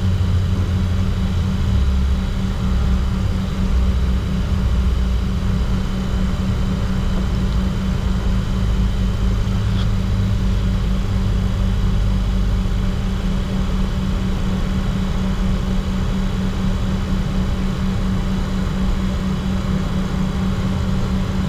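Steady cockpit hum of a Bombardier Challenger 604 with its two GE CF34-3B turbofans at idle before takeoff, a low rumble shifting underneath.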